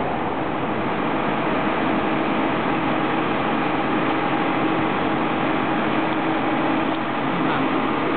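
Slurry seal machine running steadily: a constant engine drone with a steady hum and no changes in pace.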